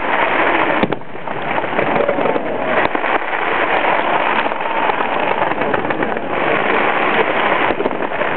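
Fireworks display going off: a dense, continuous crackling, with a few sharper bangs standing out, one about a second in and another near three seconds.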